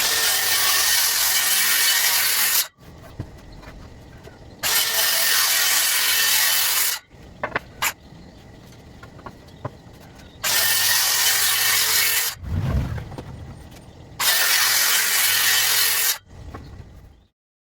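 DeWalt DCS578 60V FlexVolt cordless circular saw cutting through wood four times, each cut loud and lasting about two and a half seconds. Between cuts the saw runs at a much lower level, with a few sharp knocks.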